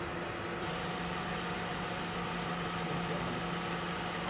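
Police cruiser idling: a steady engine hum with a constant hiss, the hiss growing stronger about half a second in.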